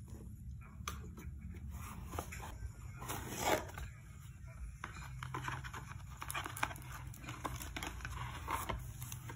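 Small cardboard box being opened and handled: rustling, scraping and light taps of the flaps and contents, with one louder rustle about three and a half seconds in.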